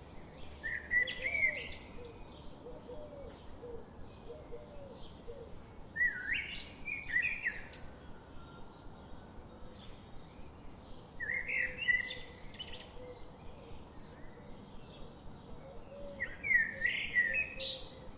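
Birds chirping: one bird sings a short, loud phrase of quick chirps about every five seconds, four times, over fainter chirps and calls of other birds and a steady low hiss.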